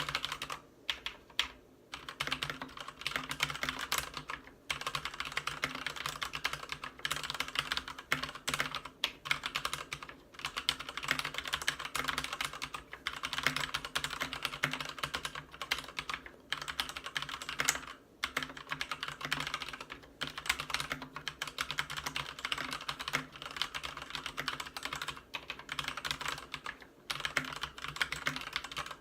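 Fast continuous typing on a Ducky Zero 3087 mechanical keyboard with Cherry MX Red linear switches and PBT keycaps: a dense patter of key clacks, broken by brief pauses a few times.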